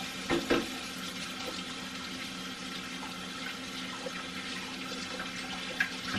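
Kitchen sink faucet running steadily while hands are washed under it, with a couple of knocks about half a second in and another near the end; the water shuts off right at the end.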